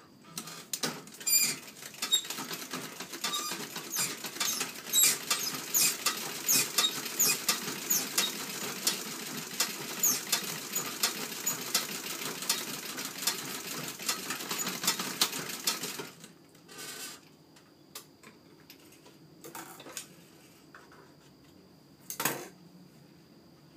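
Antique Singer treadle sewing machine running, a rapid ticking of the mechanism over the turning of the treadle and band wheel, for about sixteen seconds before it stops. A few scattered knocks follow, the loudest one near the end.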